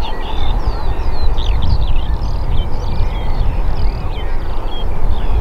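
Distant drone of the PZL M28 Skytruck's twin Pratt & Whitney turboprop engines on a low approach: a loud, uneven low rumble. Many birds chirp and whistle over it.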